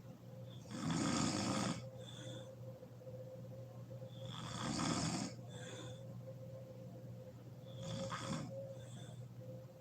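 A woman snoring in her sleep: three loud snores about three and a half seconds apart, each followed by a softer breath, over a faint steady hum.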